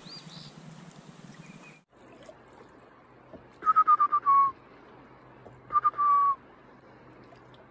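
Two short runs of clear whistled notes, about two seconds apart. Each is a quick series of notes ending on a longer, slightly lower one.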